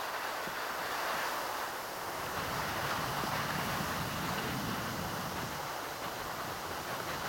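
Steady rushing noise of wind on the microphone, starting abruptly at a cut and running evenly without speech.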